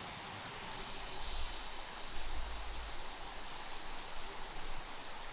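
Insects chirping in a high, evenly repeating pulse, a few pulses a second, over a faint low rumble.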